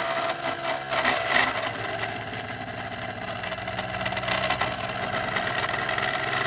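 3D-printed pulse motor running, its rotor spinning fast on a steel shaft between magnetic end bearings: a steady mechanical hum with a rapid fine rattle.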